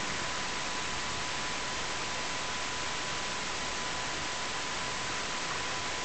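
Steady static-like hiss with a thin, steady high-pitched tone running under it.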